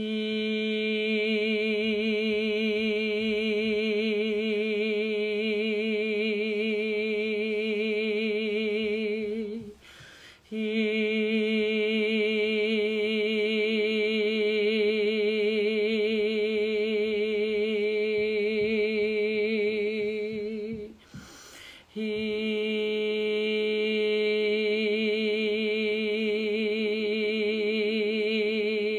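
A woman's voice chanting one long open vowel at a steady pitch, held about ten seconds, three times over with a quick in-breath between: the heart (fire) sound of the qigong Six Healing Sounds.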